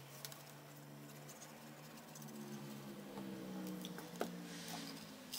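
A motorcycle engine passing outside, heard faintly through an open window, growing louder to a peak about three to four seconds in and then easing off. Light clicks and rustles of glue bottle and cardstock being handled sound over it, with one sharper click about four seconds in.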